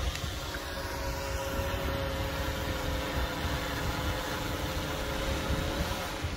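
Quadcopter fishing drone's propellers humming overhead as it comes back in to land, a steady whine that shifts slightly in pitch, with wind rumbling on the microphone.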